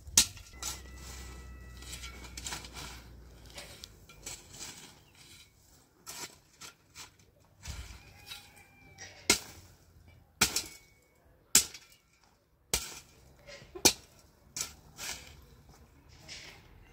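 Metal shovel digging into dry, stony earth: irregular sharp strikes of the blade against the ground with scraping between, the loudest strikes coming in the second half.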